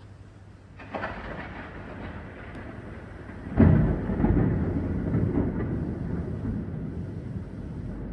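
Thunder: a sharp crack about a second in, then a louder clap a few seconds later, followed by a long rumble.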